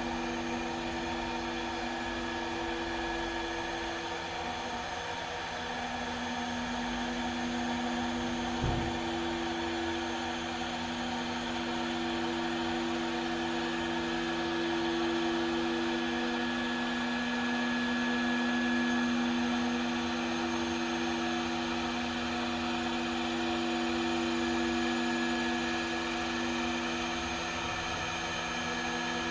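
CNC router spindle running steadily with a whine as the machine faces a workpiece on a program, swelling slightly mid-way, with a single sharp click about nine seconds in.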